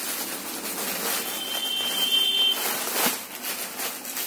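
Rustling handling noise with a few sharp knocks near the end. A steady high electronic beep sounds for about a second and a half near the middle.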